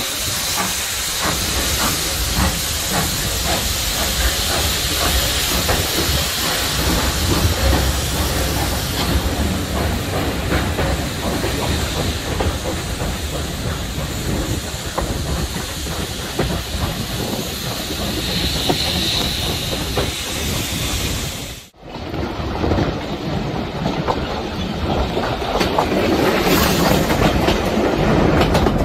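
Steam-hauled train heard from a carriage window as it pulls out of a station and gathers speed: steam hissing from the locomotive over the rapid clickety-clack of wheels on the rails. The sound cuts out briefly near the end, then another train's carriages rush past close alongside.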